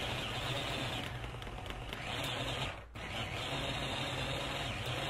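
A Bamix hand-held immersion blender runs steadily, grinding raw meat in a plastic beaker. There is a brief dip in its sound nearly three seconds in.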